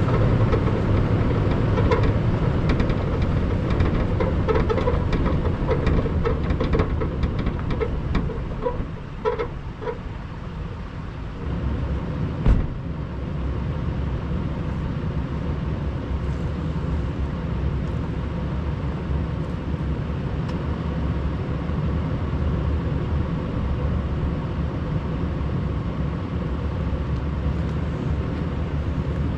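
Toyota 4Runner rolling slowly along a dirt and gravel track, heard from its hood with a steady low engine rumble and tyres crunching over stones and leaves. About twelve seconds in there is a single thump, after which the vehicle sits stopped, still rumbling steadily.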